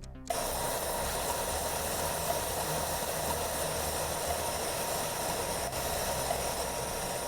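Power tool running steadily, a continuous even hiss.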